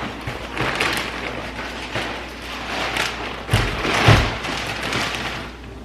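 Two heavy thumps, about three and a half and four seconds in, over a steady rustling and handling noise.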